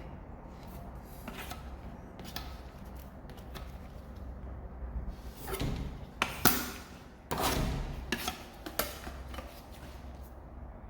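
A 6-inch putty knife scraping and smoothing lightweight putty across the face of a door in a series of short strokes, the strongest few past the middle.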